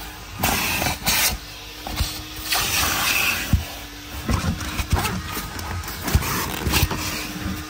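Hand cleaning of a car's interior: irregular rubbing and brushing strokes on the upholstery, each lasting up to about a second, with a few sharp knocks in between.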